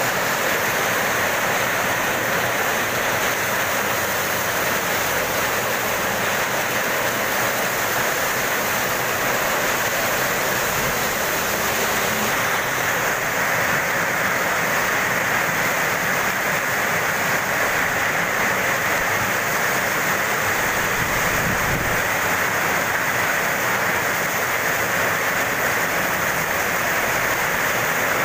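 Heavy rain pouring down: a steady, unbroken rushing hiss.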